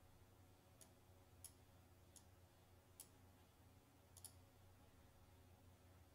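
Faint computer mouse clicks: five sharp clicks a little under a second apart, the last a quick double click, over a faint steady low hum.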